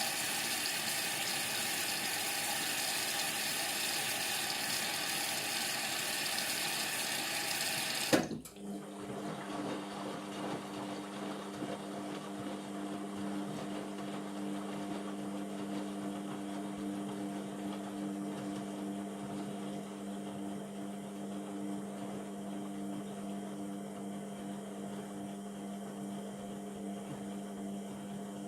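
Indesit MTWC71252WUK washing machine taking in water, a steady rush of water that cuts off suddenly with a click about eight seconds in. A steady low hum follows.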